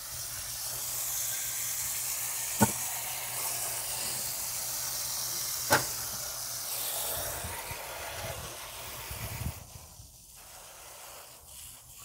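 Garden-hose spray wand hissing steadily as water is sprayed through the fins of a Lennox condenser coil, cleaning the coil. Two sharp clicks come about a third and halfway through, and the spray stops about three-quarters of the way in.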